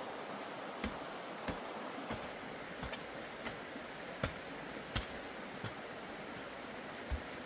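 Hand hoe chopping into garden soil: a short, dull strike about every two-thirds of a second, with a brief pause near the end, over a steady background hiss.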